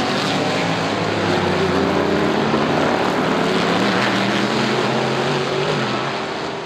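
Several race car engines running at speed around a circuit at once, their overlapping engine notes drifting slightly in pitch, starting to fade near the end.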